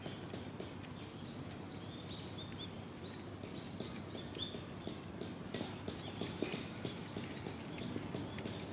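Disposable wooden chopsticks burning in a Coca-Cola-can fire stand, crackling with many small irregular pops over a steady rush of flame.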